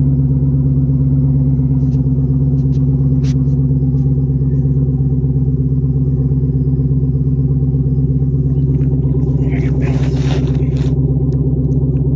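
Chevrolet Caprice PPV's 6.0-litre V8 idling steadily just after a cold start, its exhaust open with the mufflers removed (muffler delete). A brief rustling noise comes about ten seconds in.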